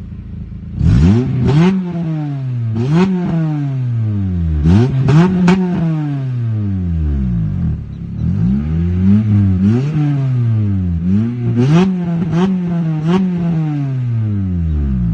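A parked car's engine revved hard again and again in quick throttle blips, each rising sharply and falling away slowly, with sharp cracks at several of the peaks and a short drop back toward idle about halfway through.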